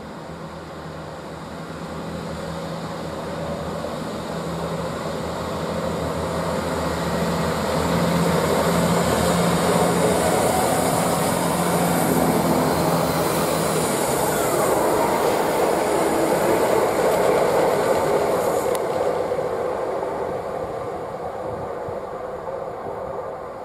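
Chiltern Railways Class 165 diesel multiple unit pulling out of the station: its diesel engines drone and its wheels run over the rails, growing louder as it passes close, with a short falling whine about halfway, then fading as it pulls away.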